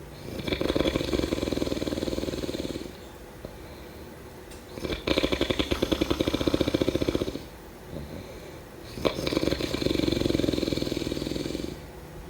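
A person snoring: three long snores, about four and a half seconds apart, each lasting two to three seconds, with quieter breathing between them. The middle snore has a fast flutter.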